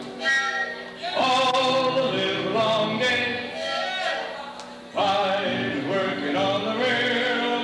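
A man and a woman singing a song live, with a strummed acoustic guitar; sung phrases start about a second in and again about five seconds in.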